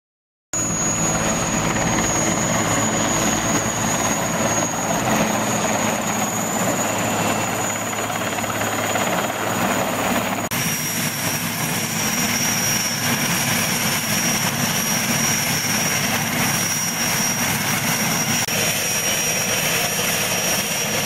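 Twin-turbine Puma-type helicopter hovering over a ship's flight deck and then running on deck with rotors turning: steady rotor noise with a high turbine whine. It starts about half a second in, and the whine steps slightly lower about ten seconds in.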